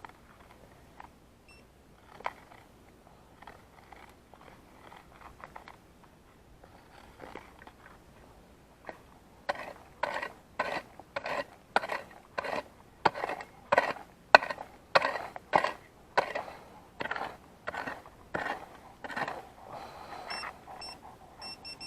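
Hand digging into soil: faint scrapes, then a steady run of digging strokes about two a second from about halfway through. Short high metal-detector beeps sound near the end as the target is checked.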